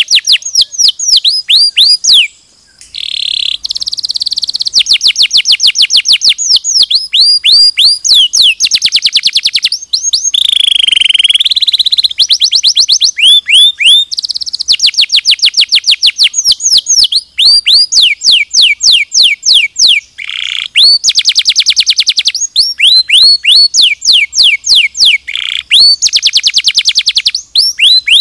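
Domestic canary singing a long, loud song of rapid trills: phrase after phrase of quickly repeated, high falling notes, each phrase changing speed or pitch, with short breaks between them. There is one longer held note about ten seconds in.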